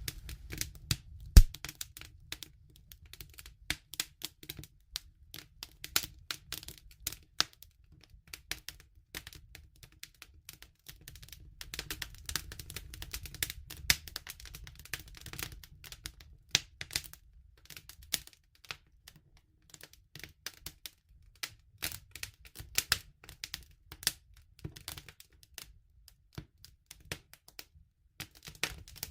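Campfire crackling: irregular sharp pops and snaps of burning wood over a low steady rumble, with one loud pop about a second and a half in.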